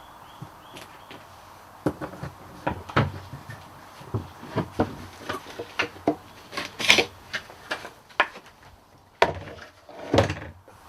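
Irregular knocks, clicks and scrapes of hand work, about a dozen sharp strikes spread unevenly, the loudest near the middle and near the end.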